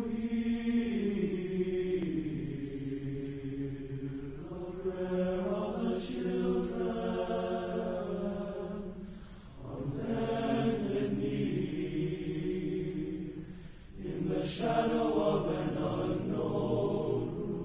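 Soundtrack music of chanting voices holding long, slowly shifting notes, in phrases several seconds long with short breaks between them.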